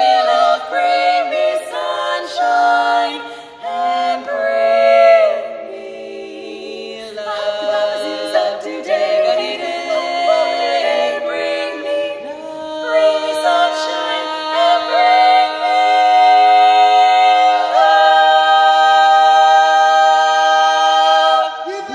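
Female a cappella quartet singing in close four-part harmony, moving through short notes at first, then holding longer notes and closing on one long sustained chord that stops just before the end.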